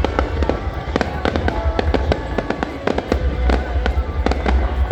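A fireworks display, with shells cracking and banging in rapid, irregular succession, several a second, over a continuous deep rumble.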